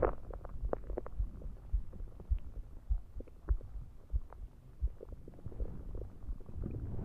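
Stomach gurgling after drinking soda: many small scattered pops and bubbling gurgles, with low thumps of a heartbeat underneath.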